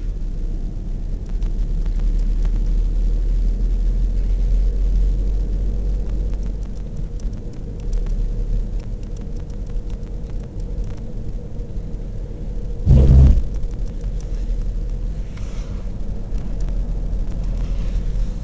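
Steady low rumble of a car driving along, engine and tyre noise heard from inside the cabin, with one short, louder thump about two-thirds of the way through.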